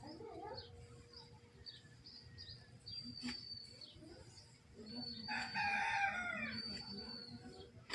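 A rooster crows once, a drawn-out call of about two seconds starting about five seconds in, the loudest sound here. Small birds chirp and whistle high around it.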